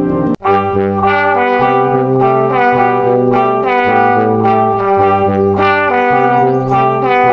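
Background instrumental music with held bass notes under a changing melody; it cuts out for an instant about half a second in and resumes as a different passage.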